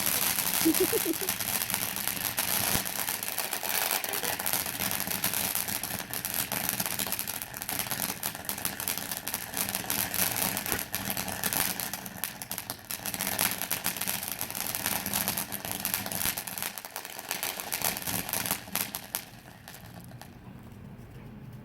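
Ground firework fountain burning: a steady spraying hiss full of crackle for most of the time, dying away about nineteen seconds in.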